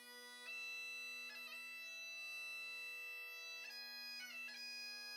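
Bagpipes playing a slow tune softly over a steady drone: long held notes with quick grace-note flicks at each change of note.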